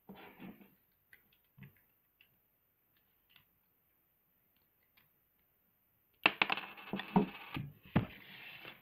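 Handling noise from a Lego fidget spinner and a pocket knife: a short rustle, scattered faint plastic clicks, then a burst of loud clattering knocks and clinks about six seconds in.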